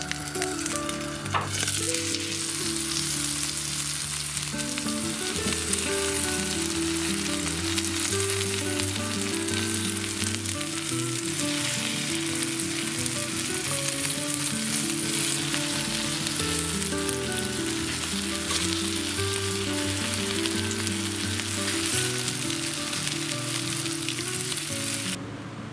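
Battered zucchini slices and carrot strips sizzling steadily in hot oil in a frying pan, under soft background music; the sizzle stops shortly before the end.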